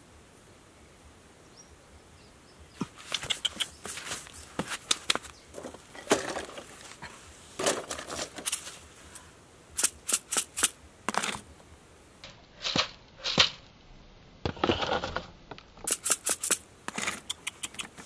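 Sharp clicks and knocks in irregular bunches, starting about three seconds in, as the bamboo-and-wire frame of a basket bird trap is tapped into place with a small plastic mallet.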